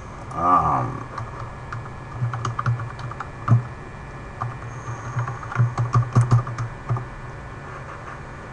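Typing on a computer keyboard: irregular key clicks in two bursts, one about two seconds in and a busier one around five to seven seconds in.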